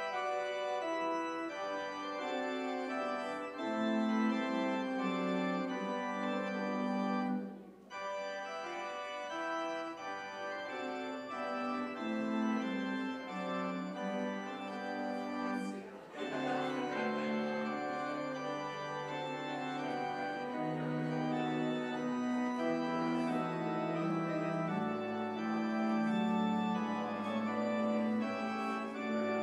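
Organ postlude: sustained chords, with a short break about eight seconds in and deeper bass notes joining about halfway through.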